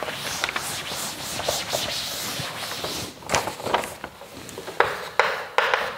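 A cloth wiping chalk off a chalkboard: a run of rubbing, scrubbing strokes.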